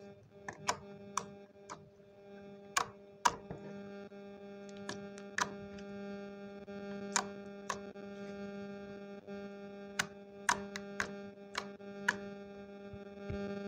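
Clear slime pressed and poked by hand, giving irregular sharp pops and clicks, over steady background music with a held synthesizer-like chord.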